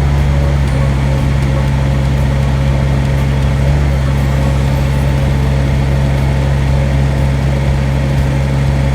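Mini excavator engine running steadily at high throttle, driving its hydraulic auger attachment, with an even, constant pitch.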